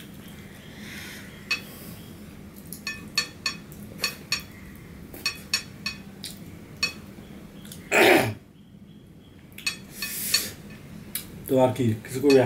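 Fingers wiping and scraping ceramic dinner plates clean after a meal eaten by hand, with scattered sharp clicks and clinks against the china. A short burst of voice comes about eight seconds in, and more voice near the end.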